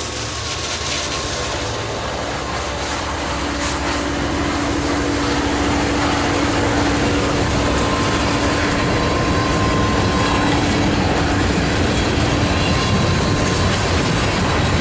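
Norfolk Southern train rolling past close by, a steady rumble and clatter of wheels on rail that grows louder over the first several seconds, with a steady low hum running under it.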